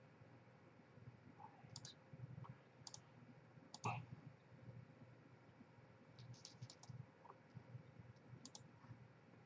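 Near silence: room tone with a few faint, scattered clicks, the loudest about four seconds in and a quick run of them between six and seven seconds.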